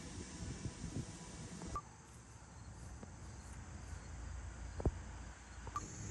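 Quiet outdoor ambience: gusty wind rumbling on the microphone and a faint, steady chirring of insects, the background shifting abruptly twice; a single soft knock about five seconds in.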